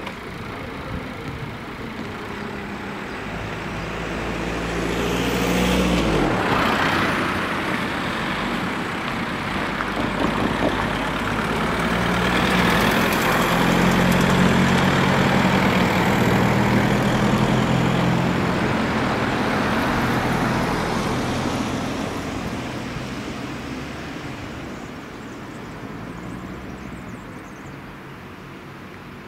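Road vehicles driving over a level crossing once the barriers are up: one passes about five to six seconds in with a falling pitch as it goes by, then a car's engine and tyres grow loud from about twelve seconds in and fade away toward the end.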